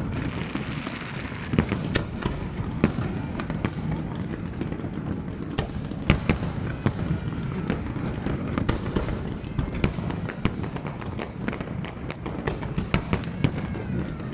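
Fireworks display: an irregular run of sharp bangs from bursting aerial shells over a continuous low rumble, with a spell of crackling in the first two seconds.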